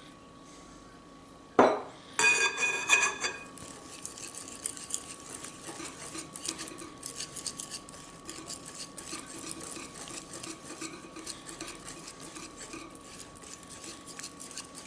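A utensil knocks and clinks against a mixing bowl, which rings briefly. This is followed by steady irregular scraping and clicking as a spoon stirs vanilla into creamed butter and sugar.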